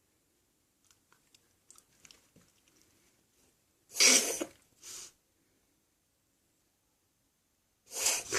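Dog coughing in harsh, hacking fits: a loud burst about four seconds in with a shorter one right after, then another near the end, with faint clicking before. The owner suspects the cough may be heartworm-related.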